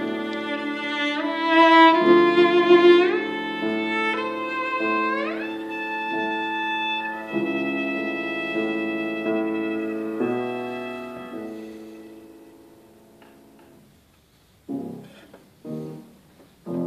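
Cello playing a slow bowed melody with piano accompaniment, some notes sliding up into the next. The cello's last note dies away a few seconds before the end, leaving the piano playing a few separate notes alone.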